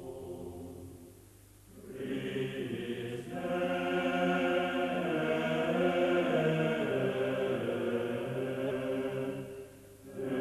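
Chant-like vocal music: several voices holding long sustained notes that move slowly from chord to chord. It swells in after a faint low drone about two seconds in and fades out near the end.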